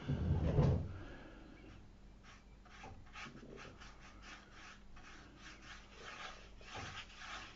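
A low handling thump in the first second, then a run of quick, short scratchy rubbing strokes: a paintbrush worked over watercolour paper.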